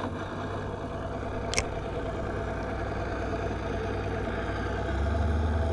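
Outboard motor of a nearby fishing boat running steadily, its low rumble growing a little louder near the end, with one sharp click about a second and a half in.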